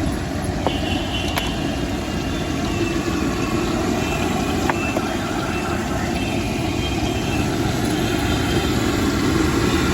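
Steady city street traffic noise from vehicles running, with faint background chatter and a few light clicks.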